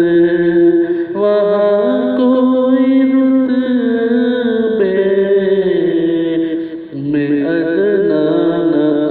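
A man singing an Urdu naat in long, melodic held notes that glide from pitch to pitch, with a brief dip in the singing about seven seconds in.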